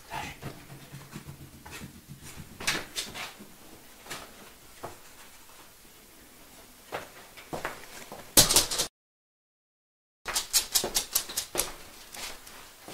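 Scattered knocks and rustles from a small dog and its handler searching over a bed, with a quick run of clicks near the end. The sound cuts out completely for about a second past the middle.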